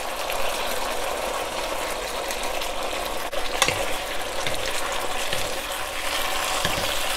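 Beef and bell peppers in black bean sauce sizzling in a wok as cornstarch slurry thickens the sauce, stirred and tossed with wooden spatulas. A steady sizzle with a few light knocks of the spatulas, the clearest about halfway through.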